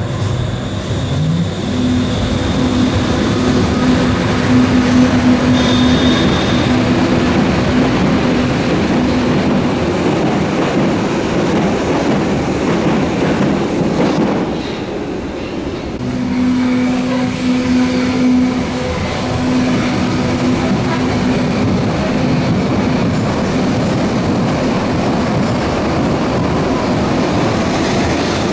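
Berlin A3-type small-profile U-Bahn trains in an underground station, wheels rumbling on the rails. About a second in, a traction-motor hum rises in pitch and then holds steady as a train gets under way, with a brief high squeal about six seconds in. After a short dip about halfway, a train runs with the same motor hum and rail rumble.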